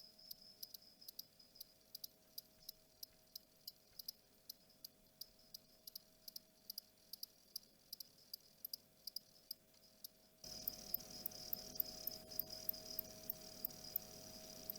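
Male Mediterranean field cricket's soft courtship song: a faint, regular series of short high ticks, about three a second. The background hiss steps up about two-thirds of the way through.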